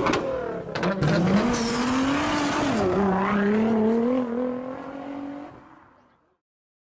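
Car engine revving hard: its pitch climbs over the first two seconds, drops briefly about three seconds in, then rises slowly again before fading out. A few sharp pops come in the first second.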